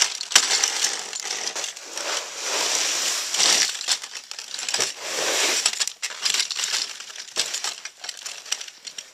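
Wide man-powered snow plow on wheels, its blade scraping snow along a driveway in repeated strokes of a second or two each. A few sharp knocks come between the strokes.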